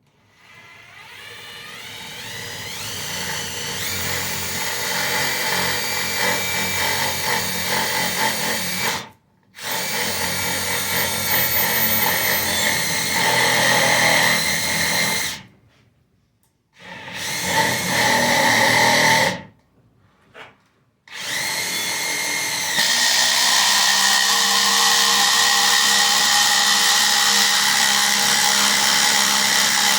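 Ridgid R87207 subcompact brushless 3/8-inch impact wrench on speed 3, hammering a 1/2 by 8 inch lag bolt into a wooden post. It builds up over the first few seconds and stops briefly three times. It runs louder and steadier through the last third.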